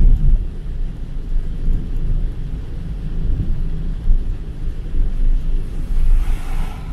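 Steady low rumble of a car driving on a rain-soaked road. About six seconds in, a brief hiss of tyre spray rises as an oncoming truck passes.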